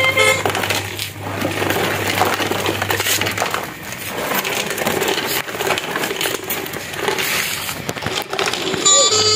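Plastic toy truck clattering and scraping, with many small irregular clicks and crackles.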